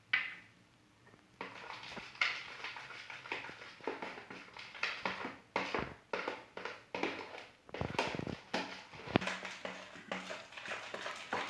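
Foamy slime mixture of slime gel, water and shaving foam being stirred in a bowl: irregular wet squishing and scraping strokes that begin about a second and a half in, after one short sound at the very start.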